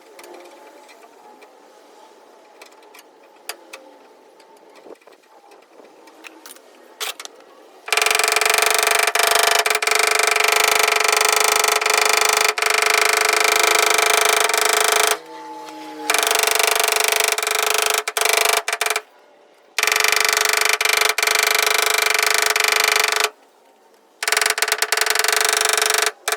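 A loud motorised tool or blower runs in four bursts of several seconds each, with a steady whine, switching on and off abruptly. Light clicks and taps come before it.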